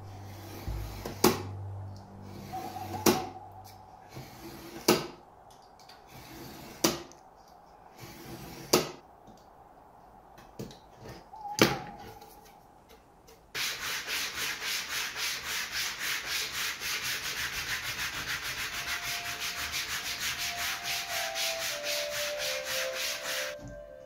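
Utility knife cutting through greyboard along a steel ruler: six sharp cutting strokes about two seconds apart. A little past halfway it gives way to sandpaper rubbed rapidly back and forth on the board, about four strokes a second, which stops just before the end.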